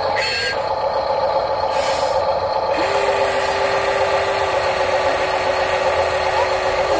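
Huina RC excavator's electric drive motors whining steadily as its boom and arm lower, with a single steady tone added from a little under halfway in as the arm moves. A reversing beep from the RC dump truck sounds right at the start.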